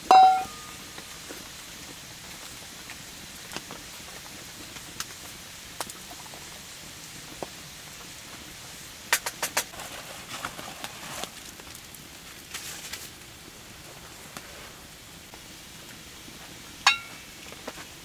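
Light rain pattering steadily, with scattered clicks and knocks, several in quick succession about halfway through. A short pitched tone sounds right at the start and another near the end.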